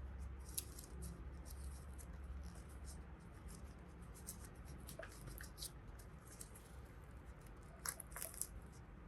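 Faint, scattered light clicks and short rustles of small plastic toys and packaging being handled, with a low hum underneath. There is a cluster of sharper clicks about eight seconds in.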